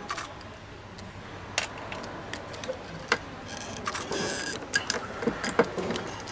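Irregular sharp clicks and light knocks of tools and parts being handled, with a short scraping rattle about three and a half seconds in.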